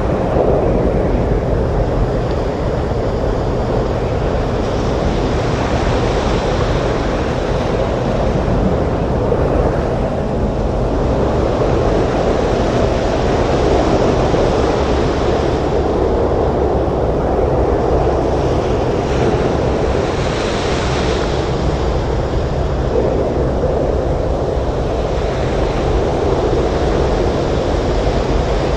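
Heavy surf breaking on a beach in a storm wind: a steady, dense rush of water and wind, with waves washing in and brightening the sound every few seconds.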